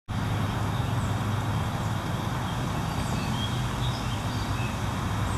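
Steady low outdoor background rumble, with a few short, faint bird chirps over it.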